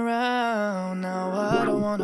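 Male pop vocalist singing one long held note from the song, the pitch bending slightly at the start, with a lower backing note joining near the end.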